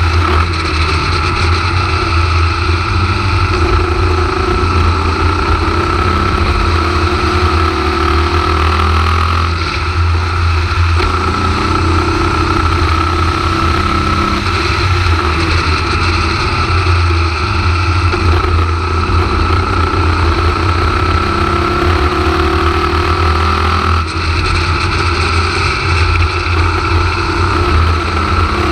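Formula Vee race car's air-cooled Volkswagen flat-four engine at racing speed, heard from the cockpit. It runs loud over a constant low drone, its pitch climbing slowly and then dropping sharply a few times at gear changes.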